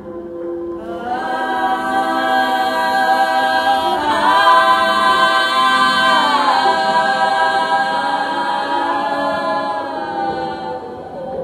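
Women's voices singing a cappella together, holding long sustained notes; the pitch steps up about four seconds in and comes back down a couple of seconds later before the voices fade near the end.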